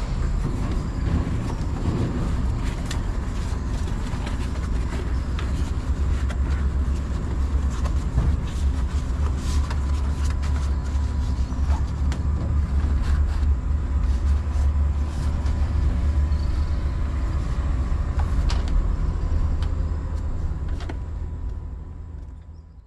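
Boat's outboard motor running steadily at constant speed: a low rumble with a thin steady whine over it. It fades out over the last few seconds.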